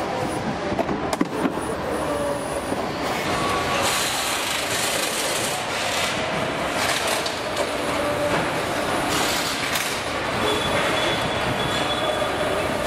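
Factory assembly-line noise: a steady din of machinery and conveyors, with a few sharp clicks about a second in and stretches of hiss in the second half.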